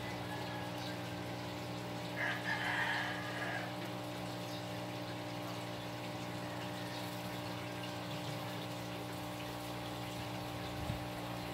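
Steady mechanical hum of a running pump, with a brief louder sound about two seconds in.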